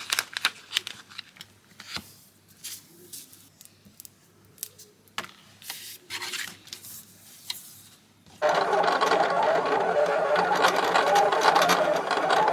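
Light clicks and handling taps, then about eight seconds in a small machine starts running with a steady, loud, buzzing mechanical noise that lasts about five seconds.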